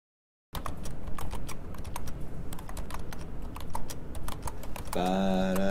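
Rapid keyboard typing, a quick uneven run of clicks starting about half a second in. Near the end a held, pitched musical note comes in.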